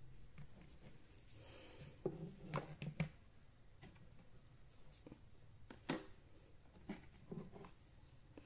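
Faint handling sounds of hands working double-sided foam tape and wiring around a black PVC pipe: a brief scratchy rustle about a second and a half in, then a few light clicks and knocks, several together around two to three seconds in and single ones later.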